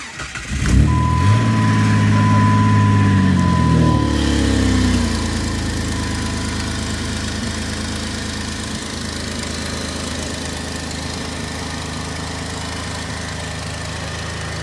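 Jeep Grand Cherokee engine, filled with Roundup weedkiller in place of engine oil, catches about a second in, runs at a high idle for a few seconds, then drops to a steady lower idle about five seconds in. A steady high warning beep sounds over the first few seconds.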